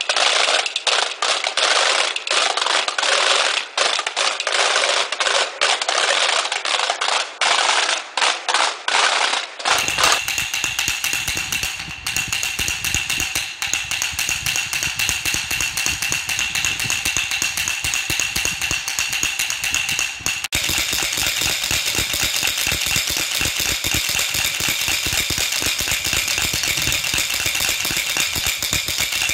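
Luxembourgish Klibberen, the wooden clappers used in place of church bells in Holy Week, swung and shaken in a rapid, rattling wooden clatter. In the later models the hinged wooden hammers knock against the cross-shaped board. The clatter changes abruptly twice as one model gives way to the next.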